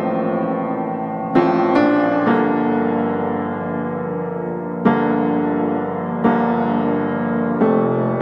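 Slow background piano music: sustained chords struck every second or two, each left to ring and fade before the next.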